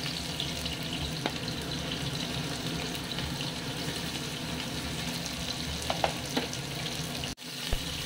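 Chopped onions sizzling steadily as they fry in hot oil in a pressure cooker, with a few light clicks of the metal spoon against the pot as ingredients are scraped in and stirred.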